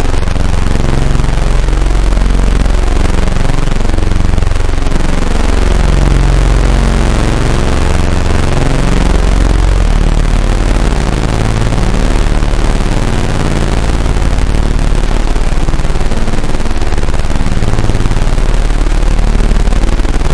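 Roland AIRA Compact S-1 synthesizer putting out a loud, dense wall of noise over a deep, sustained bass drone. Low notes jump in quick, irregular steps beneath it.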